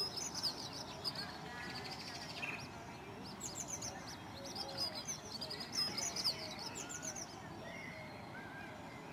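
Eurasian coot chicks peeping: thin, high-pitched calls in quick runs of falling notes, coming in short bursts every second or two.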